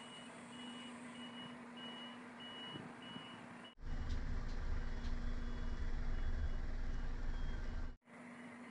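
Reversing alarm on an articulated tipper lorry beeping about twice a second over the faint sound of the engine while it backs into a tipping bay. From about four seconds in, a louder low engine sound takes over, with the beeps barely heard.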